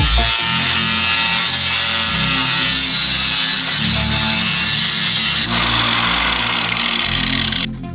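A power tool working against a workpiece, a loud dense hiss over background music with a steady bass; the tool noise stops abruptly near the end, leaving only the music.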